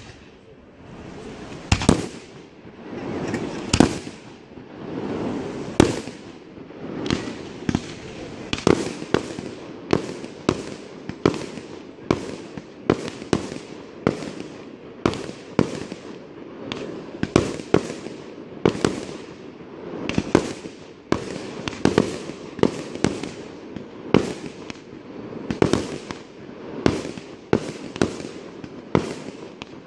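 Aerial firework shells bursting in a pyrotechnic display. The bangs come about every two seconds at first, then from about eight seconds in they come faster, one or two a second, with crackle and rumble between them.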